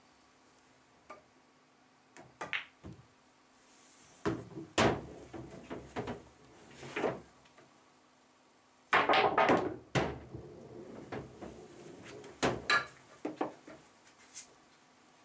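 Pool balls on a pool table during a run of shots: cue tip tapping the cue ball, balls clicking together and dropping into the pockets with wooden knocks and thuds, in several separate shots with the busiest clatter about nine seconds in.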